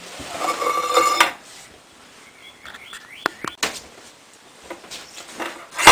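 Thin tin-can metal scraping and squeaking as one can is pressed and twisted into another. It is followed by a few short high squeaks and light clicks in the middle, and a sharp metallic clink at the very end.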